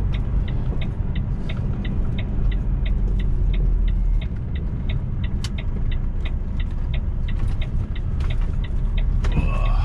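Lorry's turn indicator ticking steadily, about three ticks a second, over the low rumble of the diesel engine heard from inside the cab; the ticking stops shortly before the end.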